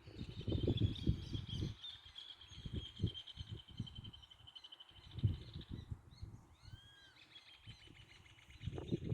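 Countryside ambience: birds chirping, with a steady high trill and a few short curved calls. Louder irregular low rumbles and bumps come in clusters near the start, in the middle and again near the end.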